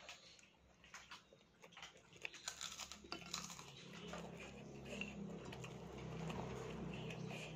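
Close-up chewing of a mouthful of rice and fried grasshoppers, with many small, quick mouth clicks and smacks. In the second half a low, steady hum builds underneath.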